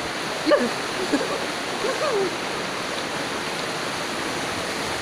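Steady rushing of river water flowing past rocks, close to the water surface. A short voice sound cuts in about half a second in and again around two seconds in.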